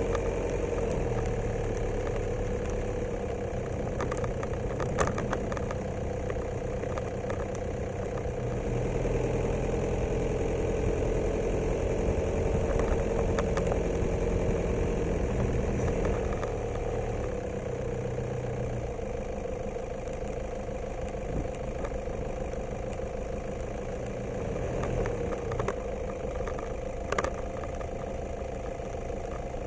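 A vehicle engine running steadily at low speed, its pitch shifting a little now and then, with a couple of sharp knocks, one about five seconds in and one near the end.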